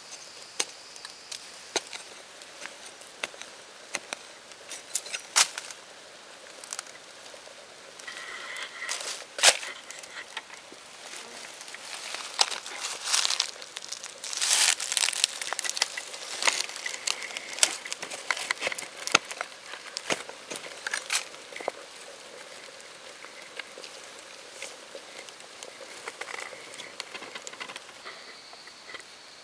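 Digging by hand and with a digging tool in dry soil among dry fallen leaves: irregular crackling, crunching and rustling with scattered sharp knocks, busiest in the middle.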